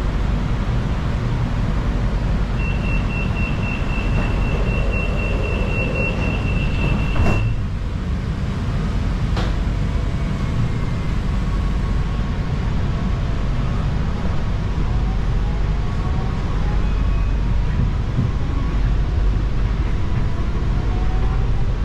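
Door-closing warning of a monorail train: a rapid high beeping for about five seconds, ending with the doors shutting with a knock, and another knock about two seconds later. The car then starts to pull away, its motors whining up in pitch over a steady rumble.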